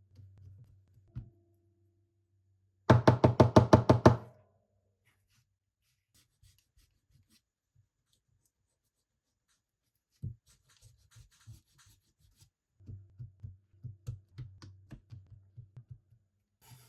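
A quick run of about a dozen sharp knocks, around nine a second, lasting just over a second. Fainter scattered taps and rubbing follow later.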